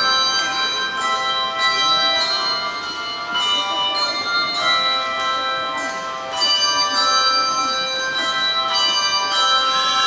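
A handbell choir playing a Christmas medley: handbells struck about twice a second, several notes ringing together in chords and sustaining into one another.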